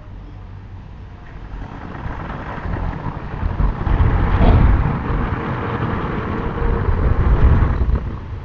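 A car passing by: a low tyre-and-engine rumble that swells over a couple of seconds, peaks about halfway through, stays up and falls away near the end.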